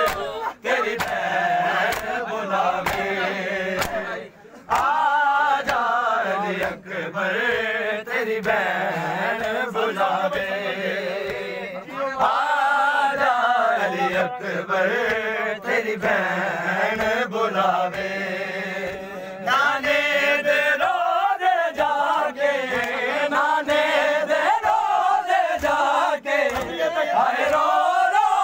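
A crowd of men chanting a noha, a Shia mourning lament, together in a long drawn-out melody, with sharp strikes keeping a steady beat, typical of matam chest-beating.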